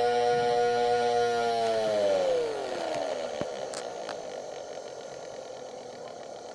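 Small DC motor whining steadily at speed, then winding down: about two seconds in the whine falls in pitch and fades as the motor slows, leaving a faint hiss.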